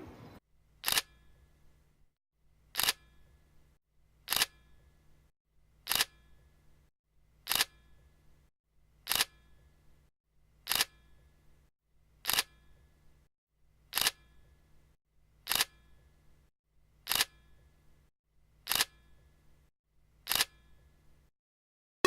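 Camera shutter click sound effect repeated thirteen times at an even pace, about one every second and a half, over a faint low hum.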